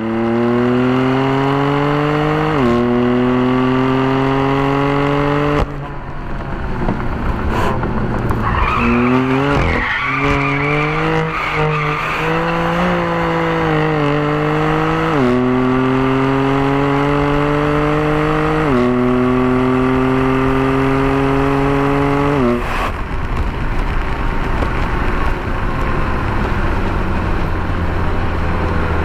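Exhaust of a BMW M4's twin-turbo straight-six under hard acceleration, heard close to the tailpipes: the pitch climbs in each gear and drops sharply at each upshift. It backs off about six seconds in, revs unevenly for several seconds, pulls through three more climbing gears, then lifts off about 23 seconds in and coasts with road and wind noise.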